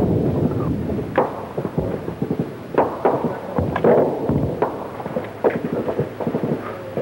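Battlefield gunfire and shell explosions: irregular sharp bangs, sometimes two or three close together, over a continuous low rumble.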